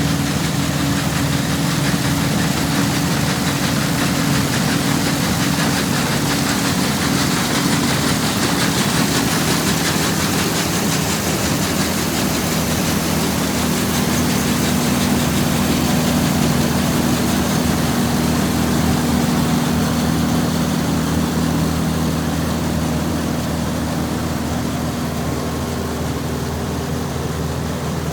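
Combine harvester running steadily: a constant engine drone under a broad rushing noise. It gets slightly quieter about 23 seconds in.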